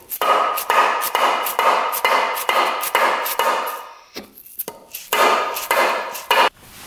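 Hammer blows driving a crankshaft out of a two-stroke engine's case half, about three ringing metallic strikes a second. They pause briefly a little after the middle, then resume.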